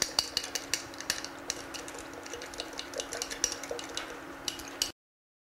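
A spoon stirring inside a bottle of milk to dissolve flour, clinking against its sides in quick, irregular taps over a faint steady hum. The sound cuts off suddenly near the end.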